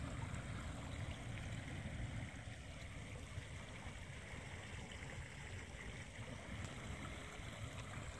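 Wind buffeting the microphone outdoors: a steady low rumble with a faint hiss above it.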